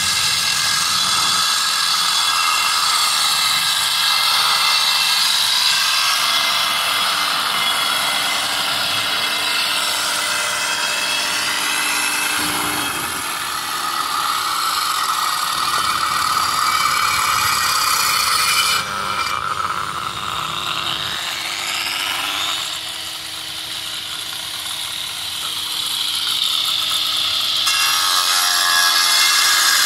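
Electric angle grinder with a cutting disc biting into a stone boulder: a continuous high whine whose pitch and loudness shift as the disc bears into the stone.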